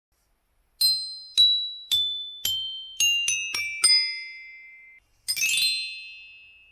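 Intro jingle of bell-like chime notes: four struck notes step downward about half a second apart, then four quicker falling notes ring on together, and near the end a shimmering sparkle of high chimes fades out.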